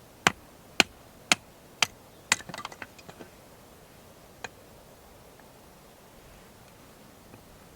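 Firewood being split: five sharp knocks about half a second apart, followed by a brief rattling clatter and a single faint knock a couple of seconds later.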